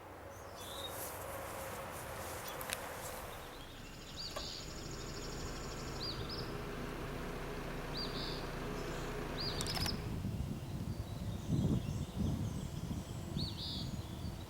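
Small birds chirping in short calls every second or so over steady outdoor background noise, with a few low rumbles about two thirds of the way through.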